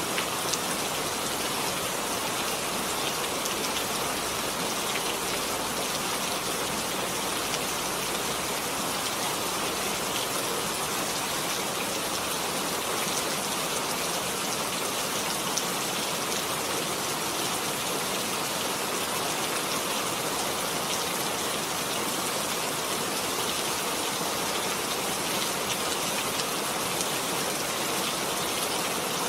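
Heavy rain falling steadily, a constant hiss of drops with faint scattered ticks.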